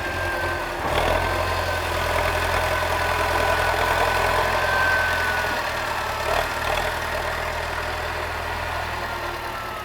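T-40AM tractor's air-cooled four-cylinder D-144 diesel running steadily at low revs, with a faint high whine that slowly falls in pitch. The sound eases off gradually near the end.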